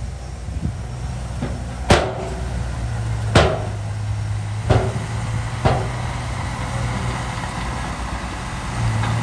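Komatsu bulldozer's diesel engine running steadily, with four sharp metallic clanks spaced about a second apart in the first half.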